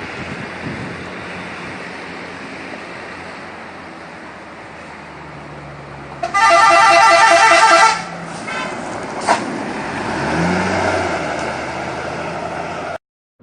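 Bus 'telolet' musical horn sounding once for about a second and a half, a loud, rapidly warbling multi-tone call about six seconds in, over steady road and engine noise.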